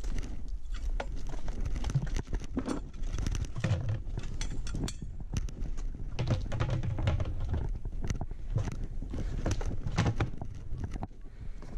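Handling noise from a plastic snake bucket being closed with a captured cobra inside: a run of clicks, knocks and rustles as the padded lid is fitted, with metal snake tongs clinking against the bucket.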